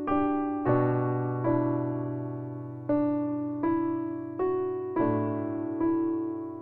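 Slow, gentle electric piano music: single notes struck about every three-quarters of a second, each fading away, with deeper bass notes entering twice.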